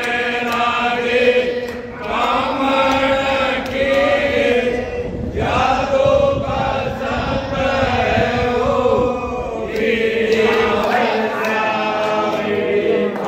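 Group of voices chanting a Hindu devotional aarti hymn together, in long held sung phrases with brief breaks between lines, and faint sharp clicks now and then.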